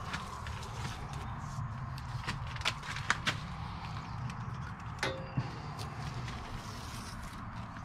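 Irregular light clicks and knocks over a steady low hum, with one sharper knock that rings briefly about five seconds in.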